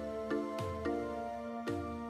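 Background music with a steady beat about once a second and a repeating melody.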